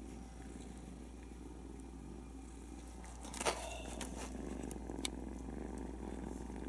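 Domestic cats purring softly and steadily close to the microphone, with a small rustle about three and a half seconds in and a light tick about five seconds in.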